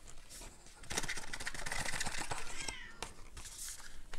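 Hands handling a small cardboard accessory box and cables: scattered light clicks and rustles, with a brief squeaky glide about two and a half seconds in.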